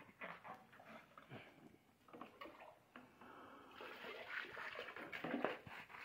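Faint, irregular gulping and splashing as liquid is poured from a plastic bottle into a fighting bull's raised mouth, with a longer, noisier spell of splashing in the second half.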